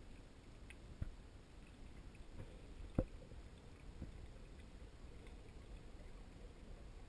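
Muffled underwater sound heard through a GoPro's sealed dive housing: a faint low rumble with a few short knocks, the sharpest about three seconds in.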